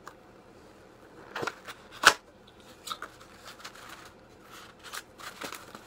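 Scattered short clicks and crackles of an ornament's packaging being handled and opened, the sharpest click about two seconds in.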